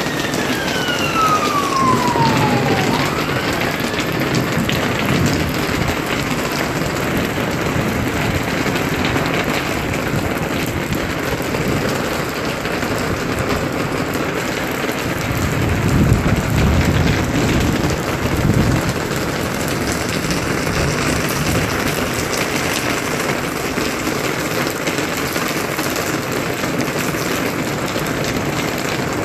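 Steady rain falling and pattering on surfaces. A few falling, whistle-like tones sound in the first few seconds. A louder low rumble swells and fades about halfway through.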